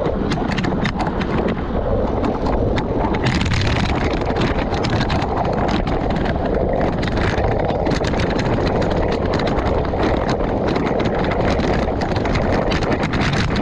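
Wind rushing over an action camera's microphone on a road bicycle in motion, a steady low rumble with many small clicks and rattles running through it.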